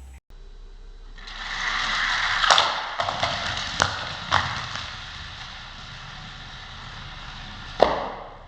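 Die-cast toy car rolling fast down plastic Hot Wheels gravity track: a rushing rattle with sharp clacks as it passes through the switches and stunts. The rattle then fades, and one last sharp clack comes near the end.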